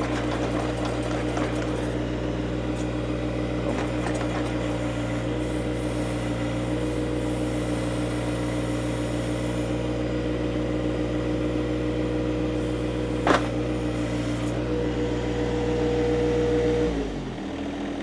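John Deere 1025R compact tractor's three-cylinder diesel engine running steadily after backhoe digging, then slowing and winding down in pitch near the end. A single sharp click about two-thirds of the way through.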